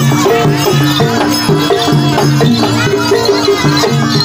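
Live music for a kuda lumping (jaranan) horse dance: a repeating figure of short, struck pitched notes over drumming, loud and steady.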